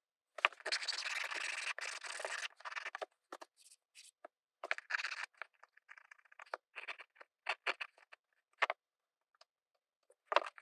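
Scratchy strokes of hand-filing on a small 3D-printed HO-scale wagon body, cleaning up rough print surfaces and support marks. A continuous run of quick strokes for the first couple of seconds gives way to shorter, separate strokes, with a final one near the end.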